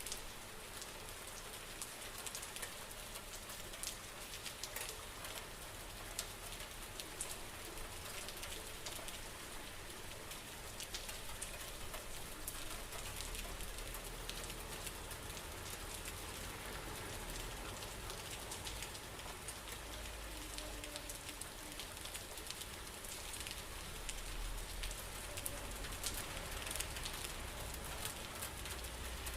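Steady rain falling, with many individual drops ticking through an even hiss.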